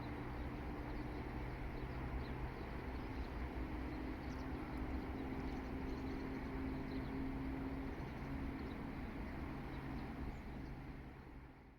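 Outdoor ambience: a steady low hum over a noisy wash, with faint high bird chirps now and then. It fades out near the end.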